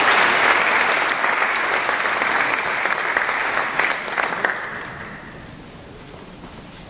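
Audience applauding in a large hall, the clapping dying away after about five seconds.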